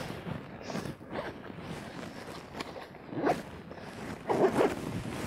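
A zipper pulled a few times in short strokes, among rustling handling noises.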